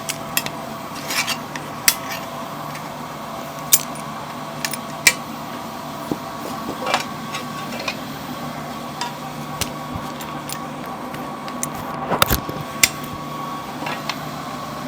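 Milling machine running with a steady hum and whine, overlaid by irregular sharp metallic clicks and knocks, heaviest about twelve seconds in. The owner says the mill is making a noise again.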